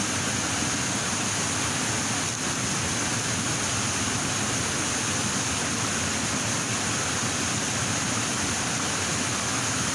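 Rushing stream water: a steady, even hiss that does not change.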